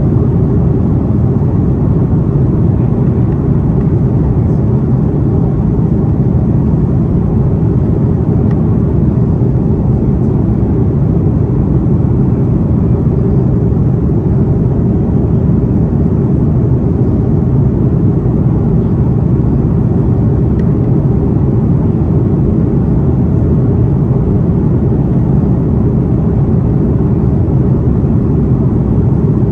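Airbus A330 jet airliner heard from inside the cabin: a steady, loud low rumble of the engines, unchanging throughout.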